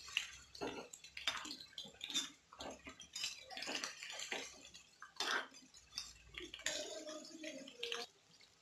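Chicken pieces deep-frying in hot oil in a metal kadai, sizzling and bubbling, with a perforated metal spoon clinking and scraping against the pan as the pieces are turned.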